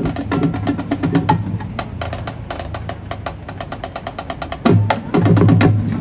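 Marching band drumline playing a percussion cadence: rapid snare and stick strokes over bass drums, with heavier, louder bass drum hits near the end.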